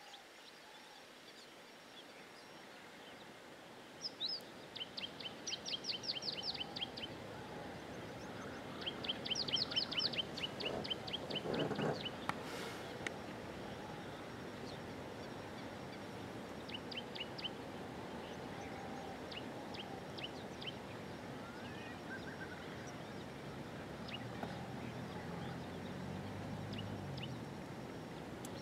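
Wild birds calling over steady outdoor background noise: bursts of rapid, repeated high-pitched notes, several to the second, come and go. There is a brief dull low noise a little before halfway.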